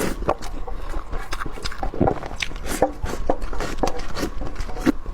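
A person chewing and eating close to the microphone: irregular wet clicks and crunches, several a second.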